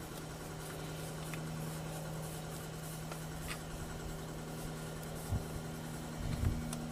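Long torque wrench being worked on a truck's front axle nut: a few faint ticks, then a couple of dull knocks near the end, over a steady low hum.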